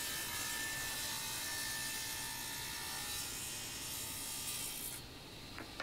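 Craftsman table saw running and ripping a board, with a vacuum drawing the sawdust out from under the saw through the dust collector: a steady whir that drops away sharply near the end.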